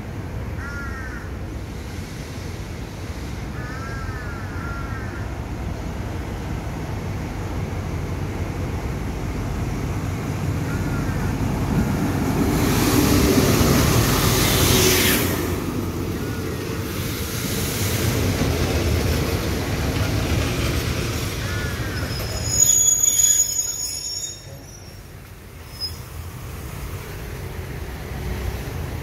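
Diesel-hauled passenger train pulling into a halt: low engine rumble and wheel noise build as the locomotive passes close by, then steady rolling noise. A brief high-pitched brake squeal comes about two-thirds of the way through as the train slows to a stop, and the noise drops sharply after it. Small birds chirp now and then.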